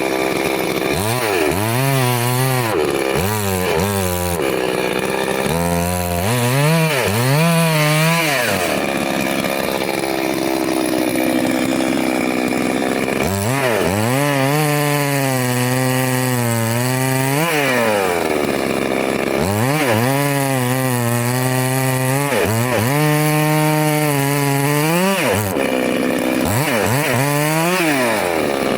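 Chainsaw engine revving up and down again and again, holding a steady high speed for a few seconds at a time, as it cuts through wood.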